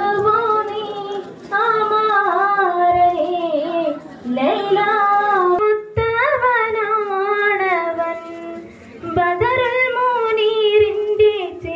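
A woman singing solo into a microphone, in melodic phrases of a few seconds with short pauses for breath between them.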